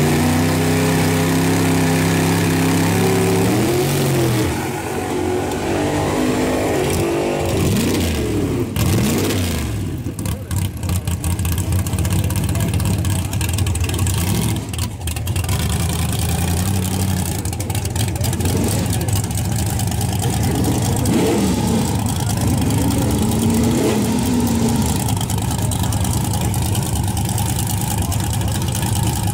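Drag-race car engine running loudly at idle, revved in short throttle blips several times so the pitch rises and falls.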